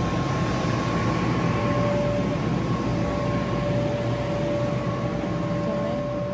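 Electric air blowers keeping inflatable bounce houses inflated, running with a steady whir and a faint steady whine.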